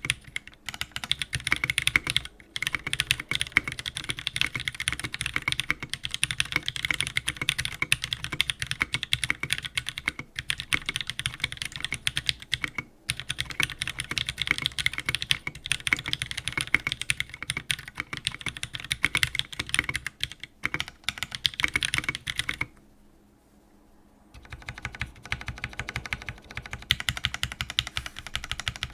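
Custom mechanical keyboard with Jwick Black linear switches on an FR4 plate being typed on steadily, a fast run of keystroke clacks. The typing stops for about a second and a half about three-quarters of the way through, then resumes.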